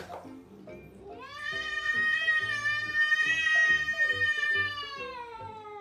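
Tabby cat giving one long, drawn-out meow lasting about four seconds, rising in pitch as it starts and falling away near the end, over background music.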